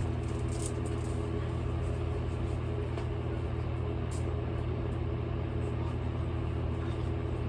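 A steady low mechanical hum with a few faint light clicks over it.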